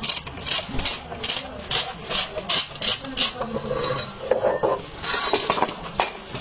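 A hand tool worked in quick repeated rasping strokes, about two or three a second, which stop after about three seconds, followed by handling noise and a sharp knock near the end.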